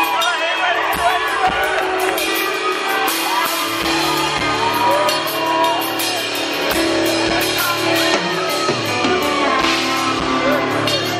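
A live country band playing loudly through a PA in a large hall, with singing and crowd voices mixed in.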